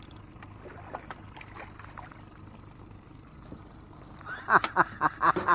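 Small splashes at the water's surface from a hooked striped bass beside the boat, then a quick run of loud splashes and slaps near the end as the fish thrashes while being swung up out of the water.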